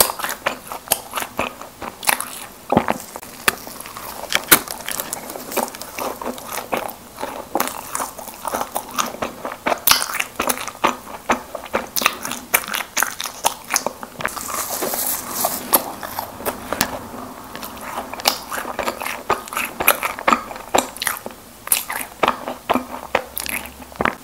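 Close-miked biting and chewing of Krispy Kreme doughnuts, with many quick, irregular mouth clicks.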